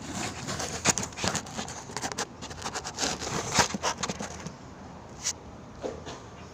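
Rapid, irregular clicks, taps and scrapes of hand work on construction materials, which stop about four and a half seconds in, followed by a single click near the end.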